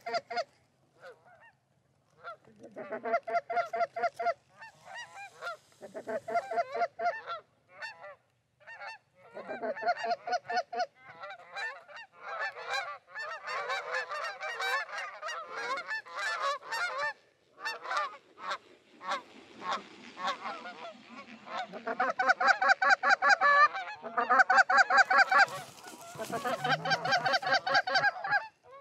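Goose honking and clucking: many quick calls at once, in bursts broken by a few short pauses, loudest near the end.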